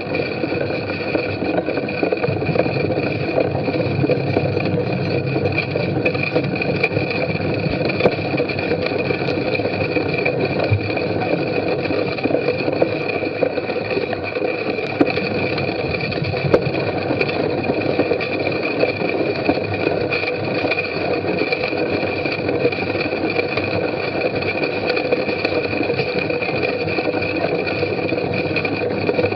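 Mountain bike ridden at speed over a muddy, bumpy course: steady tyre and drivetrain noise with scattered rattles of the bike and its camera mount.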